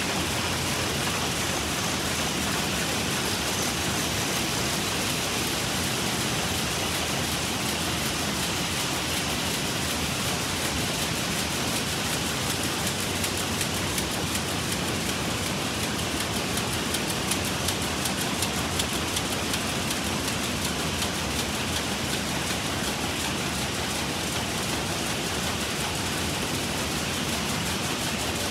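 Many rapier looms with jacquard heads weaving saree fabric together in a weaving shed, making a loud, steady, dense mechanical clatter with no let-up.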